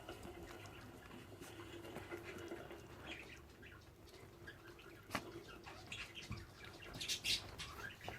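Young puppies faintly squeaking and whimpering in short high cries, with a few light knocks.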